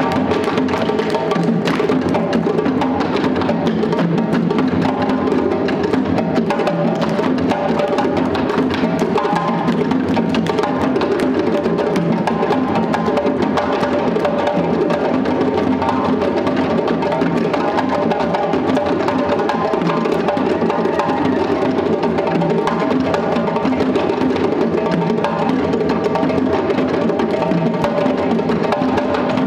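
West African drum ensemble: djembes played by hand in a continuous, unbroken rhythm.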